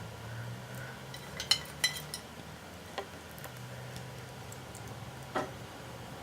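A few small sharp metallic clicks of bobby pins being handled while pinning a rolled barrel curl, the two loudest close together near the start, over a low steady hum.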